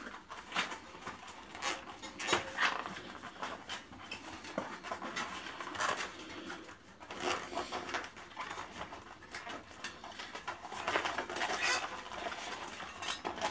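Hands pushing a rubber bicycle tyre and inner tube onto the rim: irregular rubbing, squeaking and rustling of rubber, with small knocks of the wheel.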